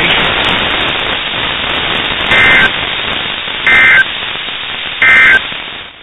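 NOAA Weather Radio static hiss, broken by three short, loud two-tone digital data bursts about 1.3 seconds apart: the EAS/SAME end-of-message signal closing the severe thunderstorm watch broadcast. The hiss fades near the end.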